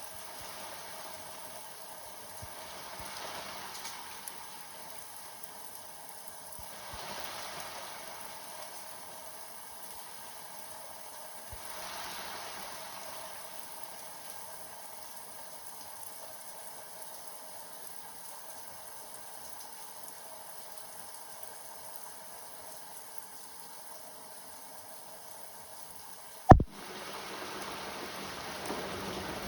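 Steady rain falling, an even hiss of drops that swells gently now and then. A single sharp click comes near the end, after which the rain is louder.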